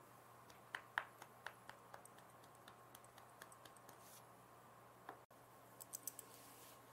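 Near silence: room tone with faint scattered clicks and ticks, a short cluster of them about six seconds in.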